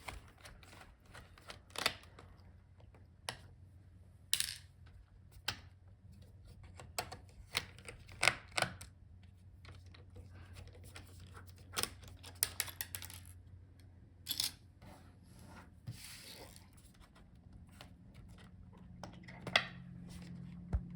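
Scattered small clicks and taps of a screwdriver and prying tool on a laptop's plastic and metal internals as a screw and a cover are removed, over a faint low hum.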